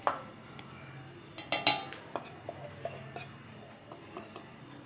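A steel spoon clinking against a ceramic plate and a stainless-steel pot as spice powders are scraped off the plate into the flour. There is a sharp clink at the start, a louder cluster of clinks about one and a half seconds in, then lighter taps.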